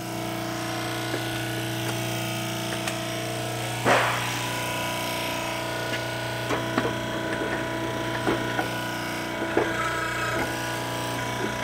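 Steady electric hum of the homemade hydraulic press's motor-driven pump running, under light metal clinks and taps as steel parts are set in place, with one louder metal clatter about four seconds in.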